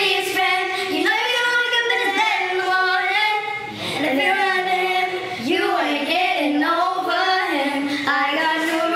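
Young girls singing a pop song together into handheld microphones, with held notes that waver in pitch.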